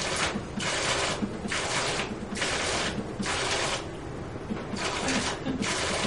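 Digital waterfall running a pattern program: its valves release water in pulses, giving a splashing hiss that comes in even bursts of about half a second, roughly once a second.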